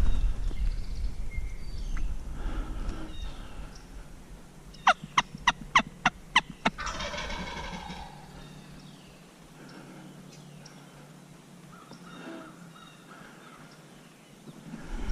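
Wild turkey calling: a quick series of about seven sharp notes a little past the middle, followed straight away by a rattling gobble about a second long.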